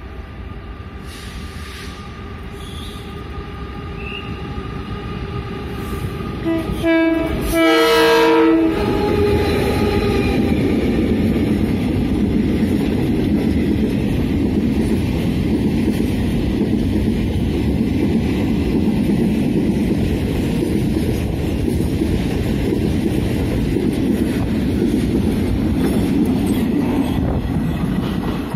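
Freight train led by a GE E42C electric locomotive: its horn sounds a short blast then a longer one about seven seconds in. Then a long string of covered wagons passes close by, with a steady loud rumble of wheels on the rails.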